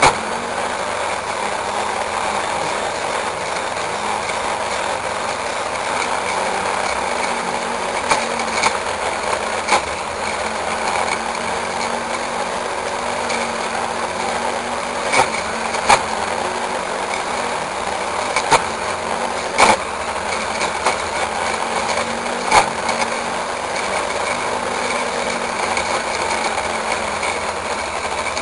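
Brush cutter's small engine running steadily at cutting speed as its blade cuts through dry weeds and grass. Sharp clicks now and then, about eight of them, as the blade strikes stiff stems or debris.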